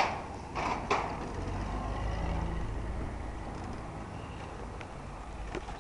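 A few sharp clanks and rattles in the first second, as of wheels rolling over a metal street drain grate, followed by a steady low vehicle engine rumble.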